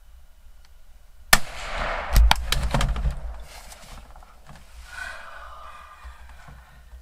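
A single hunting-rifle shot about a second in: one sharp crack, then echoes rolling on for about two seconds with a few further sharp reports.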